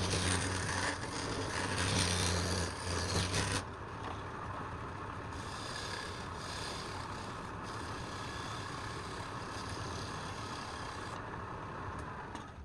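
Woodworking machine running while a tool scrapes and cuts wood: loud cutting over a steady motor hum for about three and a half seconds, then a quieter, even scraping for the rest.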